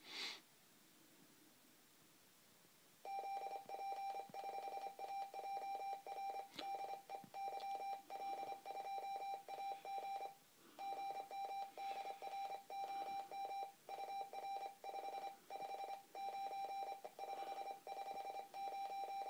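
Morse code (CW) signal from the President Jackson CB radio's speaker: a single steady beep keyed on and off in dots and dashes, starting about three seconds in, with one short break about ten seconds in. It is a station replying to a CQ call on the 10-metre band.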